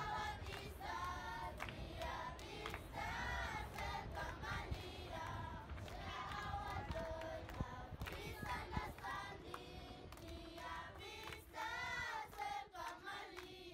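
A group of children singing together in chorus, with hand claps.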